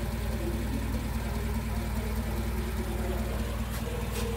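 1969 Wolseley 16/60's 1622 cc BMC B-series four-cylinder engine idling steadily, with two light clicks near the end.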